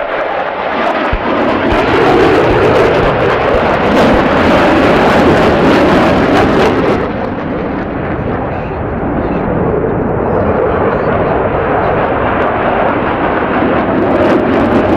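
Loud jet noise from F-16 fighter jets flying past overhead. It swells about two seconds in and eases off to a lower steady roar after about seven seconds.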